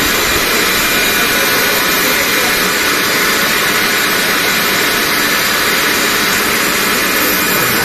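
Campbell Hausfeld rotary screw air compressor, belt-driven by its electric motor, running: a loud, steady rush of noise.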